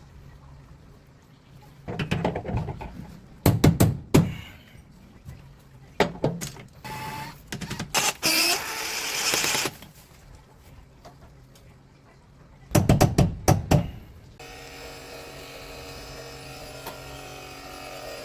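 Knocks and clatter of installation work, with a brief hiss in the middle, then from about 14 seconds in a steady machine hum made of several tones.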